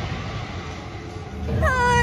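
Steady rushing noise, then about one and a half seconds in a singing voice comes in with a long sliding note, the start of a song.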